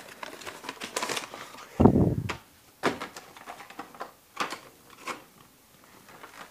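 Trading cards and pack wrappers handled on a wooden table: scattered clicks and light rustles, with one louder, low thump about two seconds in.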